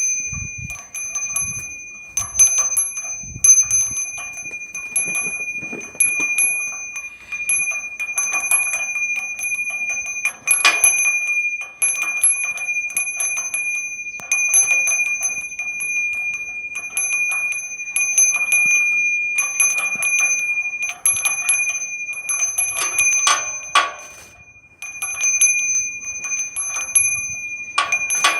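A bell rung over and over with quick, irregular strikes, its high ringing tone carrying on throughout; there is a short lull about three quarters of the way through.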